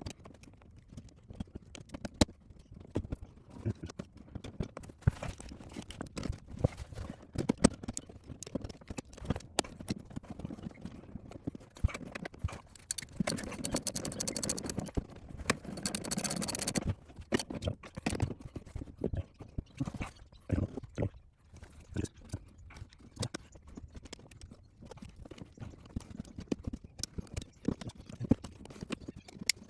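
Metal parts and hand tools clicking and knocking irregularly while a suspension brace mount is being worked on, with about four seconds of harsher scraping near the middle as clearance is cut into the mount.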